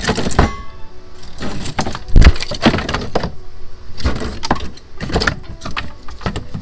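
Wooden root burls knocking against one another as they are handled and moved, a run of irregular knocks with the loudest about two seconds in, over background music.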